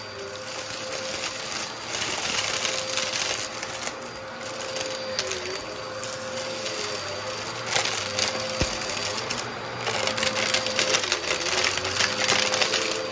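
Eureka upright bagless vacuum cleaner running with a steady motor hum, broken by irregular bursts of rattling as small aquarium rocks are sucked up through it.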